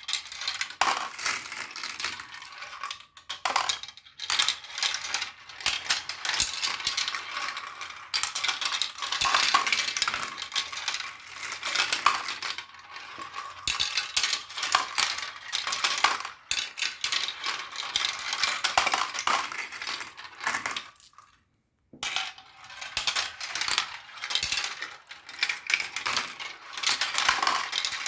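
Many marbles rolling and clacking down a marble run: a dense, continuous clatter of small hard clicks, broken by a brief silence about three-quarters of the way through.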